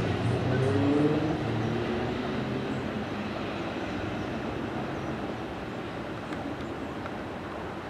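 Class 73 electro-diesel locomotive running on its diesel engine as it moves away down the line. The engine drone and wheel-on-rail noise peak about a second in, then fade steadily as it recedes.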